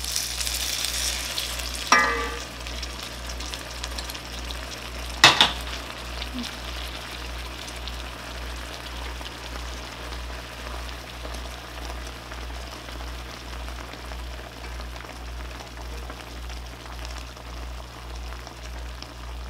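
Spicy chilli sauce hitting hot pan-fried tofu in an enamelled cast-iron pan, sizzling hard at first, then settling into a steady sizzle and simmer as it is moved with chopsticks. Two sharp clinks, about two and five seconds in.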